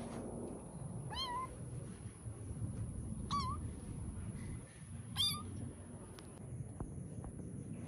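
Kitten meowing three times, short high-pitched mews about two seconds apart.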